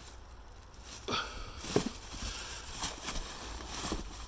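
A case of fireworks being handled: four or five separate soft knocks and bumps about a second apart, with light rustling between them.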